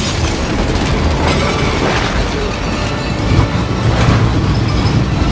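Film sound mix of a tornado: a loud, continuous low rumble and rush of wind with scattered crashes, under film score music.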